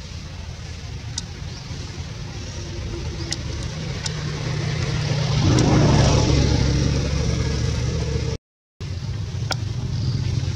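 A motor vehicle's engine humming, growing louder to a peak about six seconds in and then easing off, as if driving past. The sound cuts out completely for a moment near the end.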